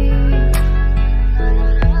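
Song music between sung lines: a sung note trails off just after the start, then held instrumental chords continue over a steady bass, with two short beats.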